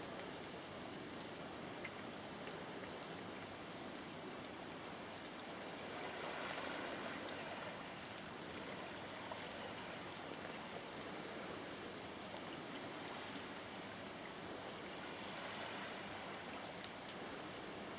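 Steady hiss of water, with scattered faint ticks.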